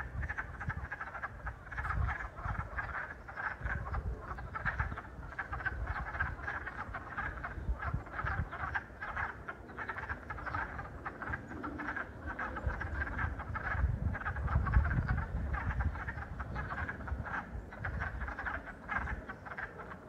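Chorus of wood frogs: many short calls overlapping in a dense, continuous clucking, with a low rumble underneath.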